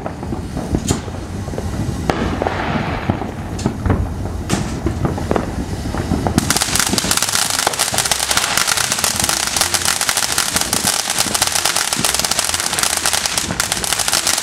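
A ground fireworks fountain on pavement hissing and throwing sparks, with scattered sharp pops. About six seconds in it breaks into a dense, continuous crackle.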